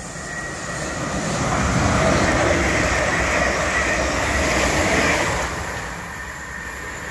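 South Western Railway class 444 Desiro electric multiple unit running through the station, its wheels and motors swelling to a loud rumble as it passes close by. It fades off sharply after about five and a half seconds as it draws away.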